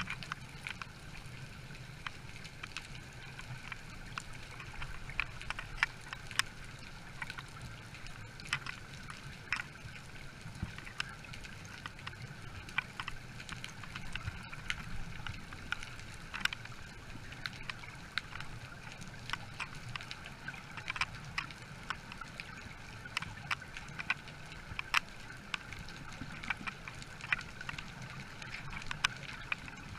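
Underwater sound heard through the camera: a steady hum and low rumble with scattered sharp clicks, a few a second at irregular intervals.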